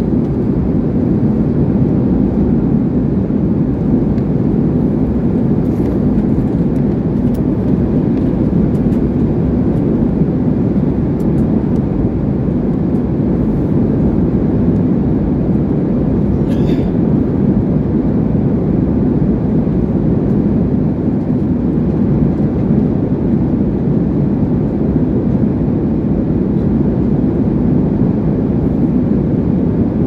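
Jet airliner cabin noise in flight: the steady roar of the engines and rushing air heard from a window seat, deep and even, with one faint brief click about halfway through.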